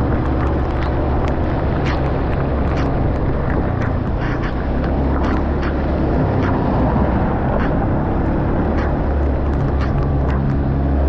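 An engine running steadily at a constant speed under a rushing noise, with scattered short clicks and knocks.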